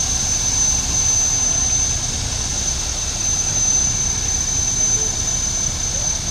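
Modified pulling tractor's engine running steadily at idle before the pull: a low rumble under a constant high-pitched whine.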